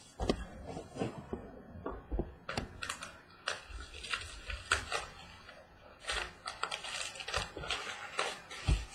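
Irregular clicks, crackles and rustling of a trading-card box and its packaging being handled and opened by hand.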